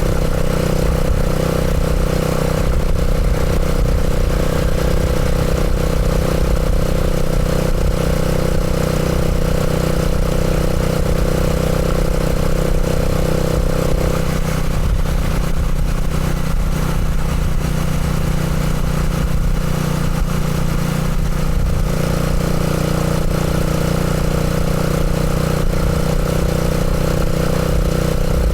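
Motorcycle engine running steadily, its note changing a little about halfway through and settling again later.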